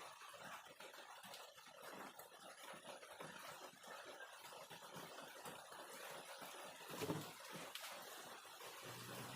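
Faint, irregular scraping of hand-carving tools cutting into hardwood, with one sharper knock about seven seconds in.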